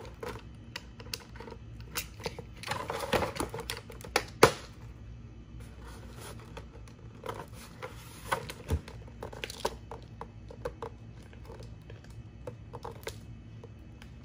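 Thin plastic mold being cut with a utility knife and flexed: irregular clicks, scrapes and crackles of the blade and the sheet, with a denser crackling stretch about three seconds in and a sharp crack about four and a half seconds in.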